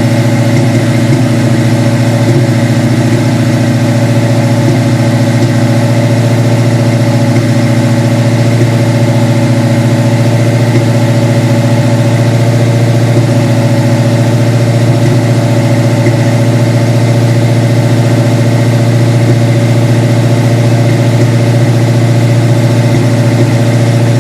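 Engine idling steadily at a raised idle of about 1500 rpm, the throttle held open by a penny in the throttle body. The owner hears a miss in it that he is trying to identify.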